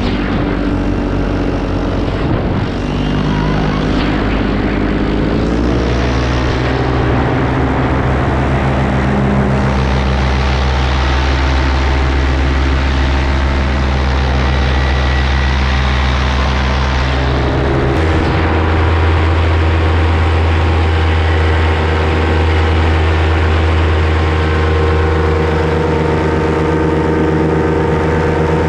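Paramotor engine and propeller running steadily in flight. The pitch shifts about six seconds in and changes again around eighteen seconds in.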